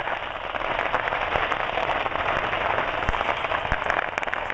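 Fireworks stock burning in a stand fire, going off as a dense, continuous crackle of small pops, with two dull thumps a little after three seconds in.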